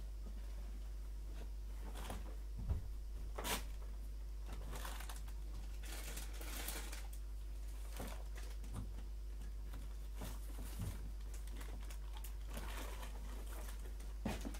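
Faint rustling and scattered light clicks over a steady low hum.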